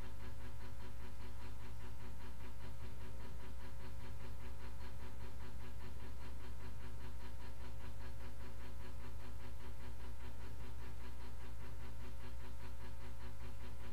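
Steady low electrical hum with a few faint steady tones above it, unchanging throughout: the background room tone picked up by a fixed camera's microphone.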